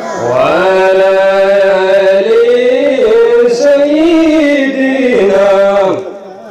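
A man chanting a long, ornamented melodic phrase in one held breath, his pitch slowly rising and falling. It breaks off about six seconds in.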